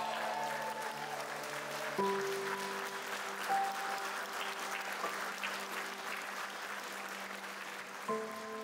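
Wedding guests applauding steadily after the vows, with background music of slow sustained chords underneath that change about two seconds in and again near the end.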